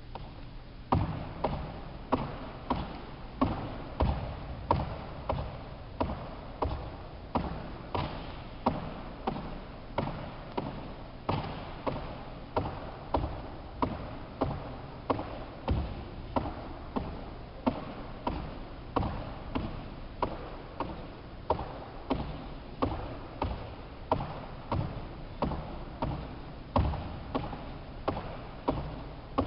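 Athletic shoes landing again and again on a wooden sports hall floor during rebound jumps, about one landing a second, starting about a second in. Each landing is a sharp thud with a short echo.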